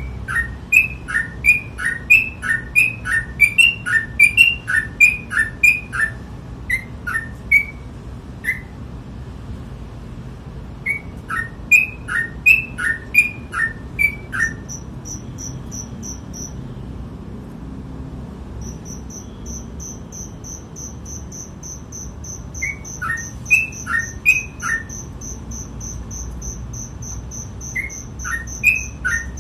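Sooty-headed bulbul (trucukan) singing in rapid bouts: quick repeated two-note phrases, each a higher note dropping to a lower one, with pauses between bouts. A high, fast-pulsing chirp comes in about halfway and runs on under the song.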